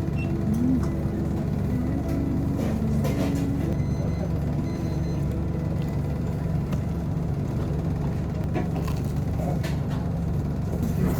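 Steady low engine hum of a road vehicle, as in street traffic.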